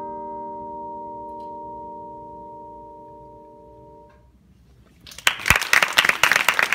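Yamaha vibraphone's final chord ringing and slowly fading, its notes stopping together about four seconds in. About a second later an audience breaks into loud applause.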